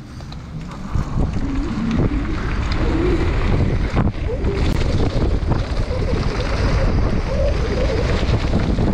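Mountain bike descending a gravel and dirt downhill trail at speed: wind rushing over the bike's camera microphone, tyres rolling on loose ground, and frequent rattles and knocks from the bike over rough ground. The rushing builds over the first two seconds as the bike gathers speed.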